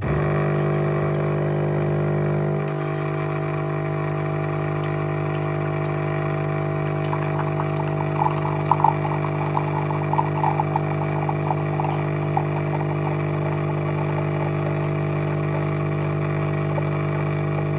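Tchibo bean-to-cup coffee machine brewing a cup, with a loud, steady mechanical hum that starts abruptly. The hum shifts down in pitch about three seconds in, and a patch of irregular crackling comes midway.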